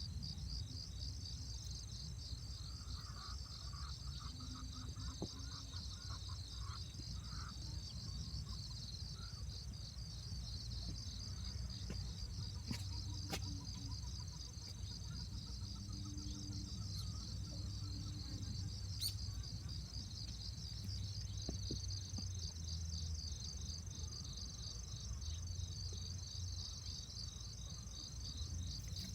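Crickets chirping in a steady, fast-pulsing chorus, over a low steady rumble and a few faint, short higher calls.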